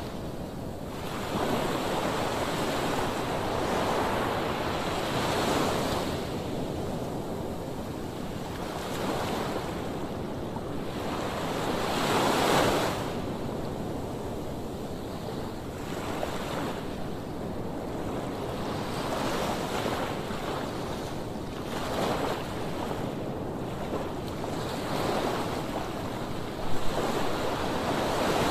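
Sea waves washing onto the shore, the surf swelling and falling back every few seconds, with wind buffeting the microphone. A short sharp knock near the end.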